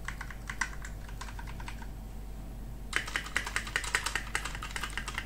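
Rexus MX5.2 Finale mechanical keyboard with brown switches: a stabilized key, the backspace, is tapped again and again, clicking with the stabilizer rattle that the shift, enter and backspace keys still have. After a short pause near the middle, a faster and louder run of key presses follows.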